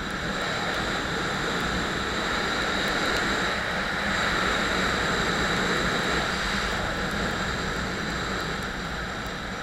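Motorcycle on the move: the engine running under a steady rush of wind and road noise, swelling a little in the middle.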